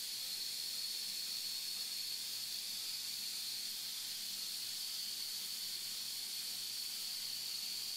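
Steady background hiss with a faint, constant high-pitched whine and no distinct events.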